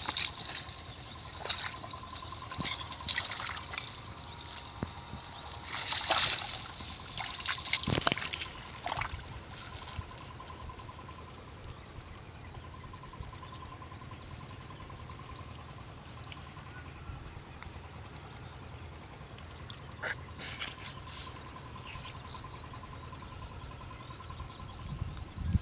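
Shallow creek water splashing and trickling as hands work a mesh bag in it: a run of small splashes in the first nine seconds or so, then quieter trickling with a few more splashes near twenty seconds in.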